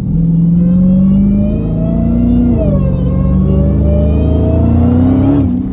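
Dodge Challenger Hellcat's supercharged 6.2-litre Hemi V8, breathing through a JLT cold air intake, accelerating hard: the pitch climbs, dips at an upshift about two and a half seconds in, then climbs again before easing off near the end.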